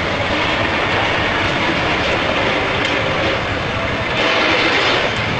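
Steady rumbling vehicle noise from a truck's engine and the road, a little louder about four seconds in.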